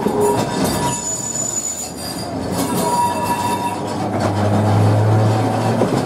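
Vintage 1904 electric tramcar running on its rails, heard from on board the open-sided car: steady wheel-and-track rumble with thin high squeals from the wheels in the first half. A low steady hum comes in about four seconds in.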